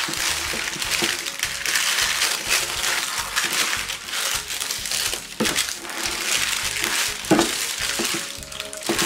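Baking paper crinkling and rustling in dense, irregular crackles as it is folded and pressed tightly around a marinated leg of lamb in a baking tray.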